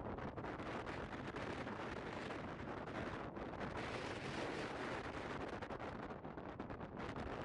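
Strong wind buffeting the microphone: a dense, unbroken rush of noise with brief dips about three seconds in and again near the end.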